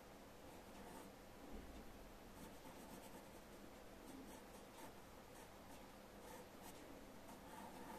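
Wooden pencil sketching on paper: faint, short strokes at irregular intervals.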